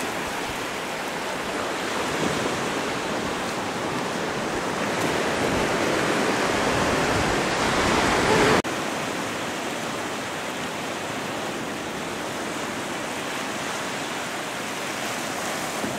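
Small waves washing up a sandy beach, an even rush of water that swells a little louder. It cuts off abruptly about halfway through and gives way to a quieter, steady rush of the sea along a rocky shore.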